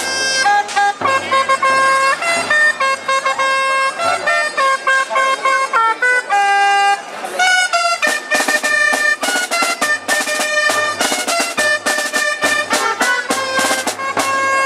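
Traditional street music of wind instruments and drum: loud held wind notes carry a melody over a steady drum beat, with a brief break about seven seconds in.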